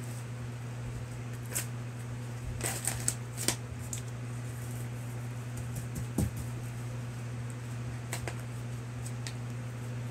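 Wrapping paper and masking tape crinkling and crackling in short rustles as a taped-up package is picked open, most of them about three seconds in, over a steady low hum.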